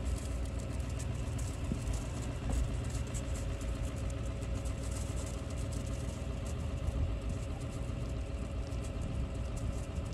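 Pickup truck engine idling steadily, a low even rumble, with scattered faint ticks over it.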